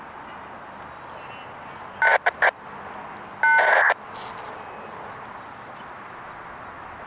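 Loud, abrupt bursts from a two-way radio or scanner: three quick crackles about two seconds in, then a half-second burst carrying a steady two-note tone. Faint steady outdoor background hiss underneath.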